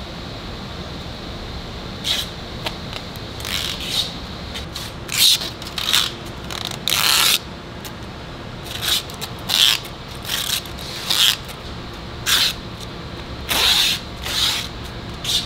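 Plastic wrapping film crinkling and packing tape being pulled and pressed onto a film-wrapped roll, in a dozen or more short scratchy bursts. Steady factory machinery hums underneath.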